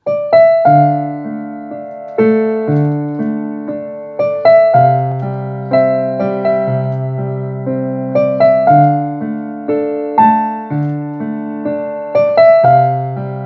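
Casio Privia PX-750 digital piano played with both hands: a slow melody over held low bass notes and chords. Each note is struck and then fades before the next.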